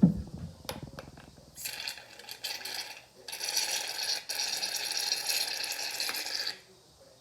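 Aerosol shaving cream can hissing as foam is pushed out, in two spurts: a short one about a second and a half in, then a longer one of about three seconds. The can is nearly empty and not dispensing properly.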